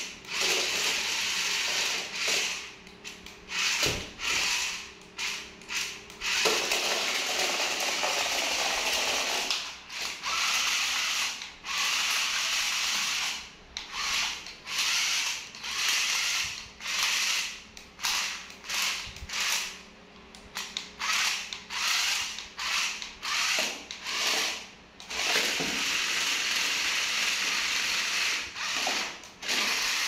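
Toy remote-control stunt car's small electric gear motors whirring in stop-start spurts as it drives and spins, some lasting a fraction of a second and a few running for several seconds.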